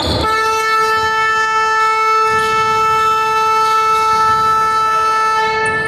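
Basketball arena scoreboard horn sounding one long, steady, loud blast.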